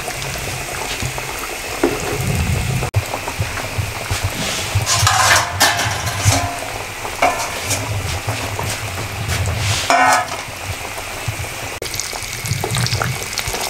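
Breaded chicken patties deep-frying in hot ghee in a wok over a low flame: a steady bubbling sizzle. A few brief louder scrapes and clinks of metal utensils in the pan come about five seconds in and again near ten seconds.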